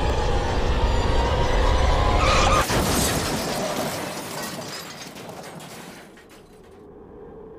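Car-crash sound effect in a texting-and-driving PSA: a low rumbling music bed cut off by a sudden crash with glass shattering a little over two seconds in, the glass and debris fading away over the next few seconds.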